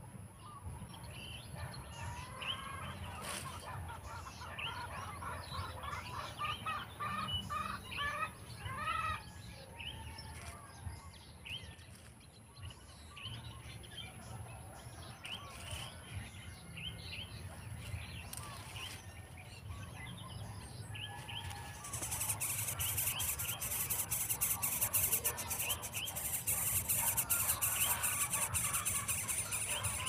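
Baby birds in a nest chirping, with short high calls in quick clusters. About two-thirds through, a louder, high, rapidly pulsing hiss starts and keeps going, with the chirps continuing over it.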